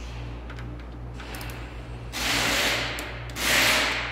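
Hand ratchet and wrench work on a Cat 3406B's valve and jake brake adjusting screws: a few light metal clicks, then two rasping bursts about half a second apart, each just under a second long.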